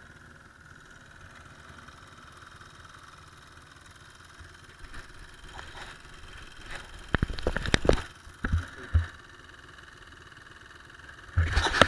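Small dirt bike engines idling steadily at a standstill. Between about seven and nine seconds in there is a cluster of sharp knocks and rubbing as a sleeve or glove brushes the camera, and a loud burst of handling noise comes right at the end.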